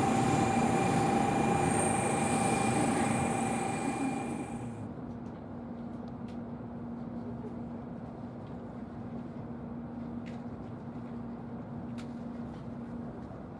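N700-series Shinkansen train standing at a station platform, a steady noise with high whines. About five seconds in this gives way abruptly to the quieter sound inside the cabin as the train pulls slowly out: a low steady hum with a few faint clicks.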